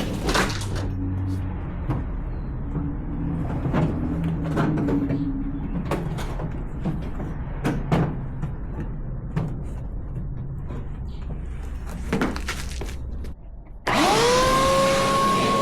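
Knocks, clunks and rustling of someone climbing through a car's interior toward the trunk, over a low hum. Near the end the sound changes abruptly to a loud steady hiss with a tone that rises and then holds.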